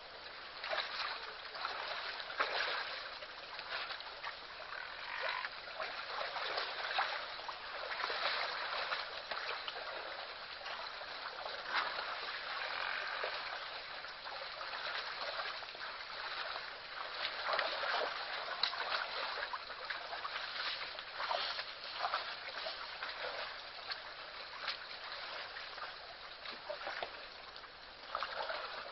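Water splashing and sloshing as a large herd of African buffalo wades and drinks in a waterhole, with many irregular splashes over a continuous watery wash.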